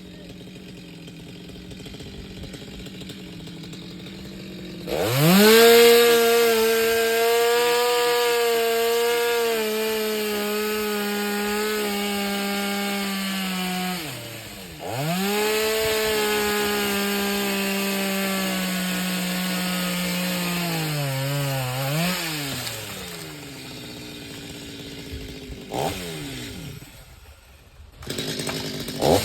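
Two-stroke chainsaw idling, then revved to full throttle about five seconds in and held for several seconds while cutting. It drops back briefly and revs up again, its note sagging under load before falling back toward idle, with short blips of throttle near the end.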